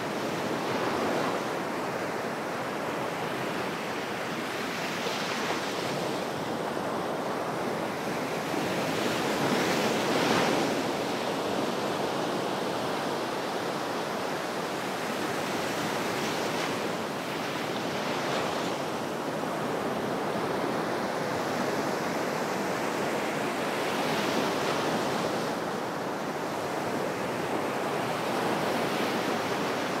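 White Sea waves washing up onto the shore in a steady wash, each wave swelling and easing every few seconds. The biggest wave comes about a third of the way in.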